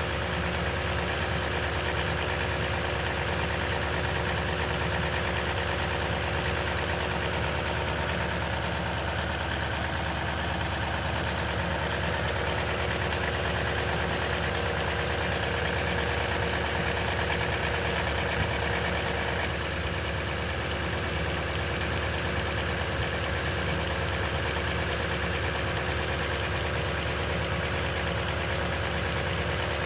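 2010 Toyota Tundra engine idling steadily after a cold start, with a continuous mechanical rattle that the owner takes for timing chain noise. The sound eases slightly about two-thirds of the way through.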